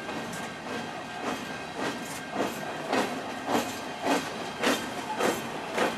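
Intermodal freight cars rolling past, their steel wheels clacking on the rails in an even rhythm of about two clacks a second over a steady rumble.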